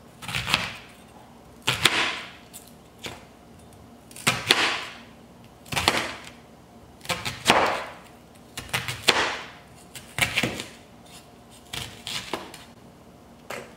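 Kitchen knife slicing a whole raw onion into rounds on a plastic cutting board: a crisp crunch with each stroke, ending in a click of the blade on the board, about once every second and a half.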